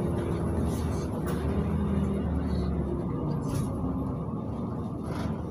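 Cabin noise of a LiAZ 5292.71 city bus under way: its compressed-natural-gas MAN engine runs steadily under road and tyre noise. The low engine hum eases about three seconds in. A few faint rattles sound from the cabin.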